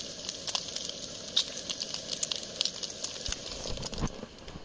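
Bacon sizzling and crackling in a frying pan: a steady hiss with frequent sharp pops of spitting fat. Near the end come two low thumps.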